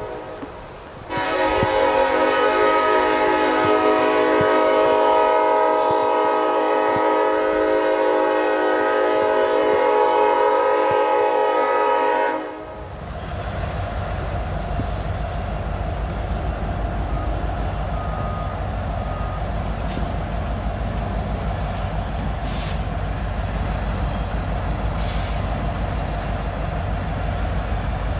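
Diesel locomotive horn on an approaching Norfolk Southern freight train sounding a multi-note chord: the tail of one blast, then about a second in one long blast of roughly eleven seconds that cuts off sharply. After it, a steady low rumble of the approaching train mixed with rain noise.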